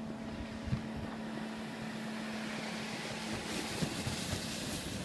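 Snow tubes sliding over packed snow, a hiss that builds over the last second or two as they pass close, over wind rumble on the microphone and a steady low hum.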